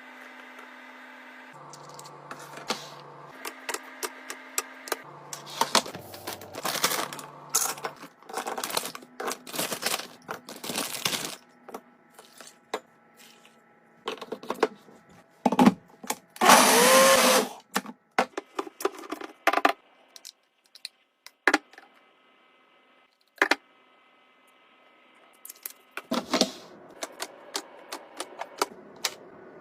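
Food containers and packaging being handled: a run of light clicks, knocks and rustles, with a louder rustle about halfway through, a quiet stretch after it, then more handling near the end.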